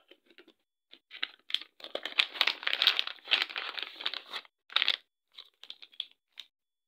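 Plastic packaging crinkling as it is handled and squeezed: a dense run of crackling for a few seconds, then a shorter burst and a few scattered crinkles.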